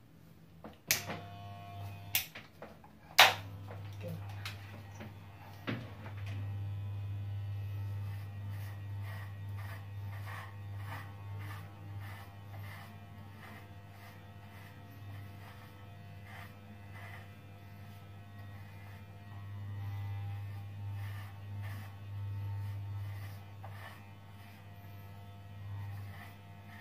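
Corded electric hair clippers buzzing steadily as they cut hair, the buzz swelling and fading as the blade moves over the head. Three sharp clicks in the first few seconds, the loudest about three seconds in, as the buzz starts, stops and starts again.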